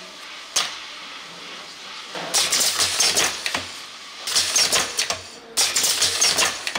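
Brush tufting machine setting tufts of bristles into the holes of a round perforated brush plate, with rapid clicking strokes in three bursts of about a second each and short pauses between them.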